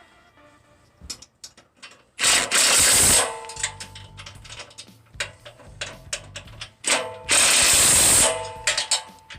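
Ratchet wrench clicking as the sawmill track bolts are cinched up, with two loud bursts about a second long, one about two seconds in and one about seven seconds in.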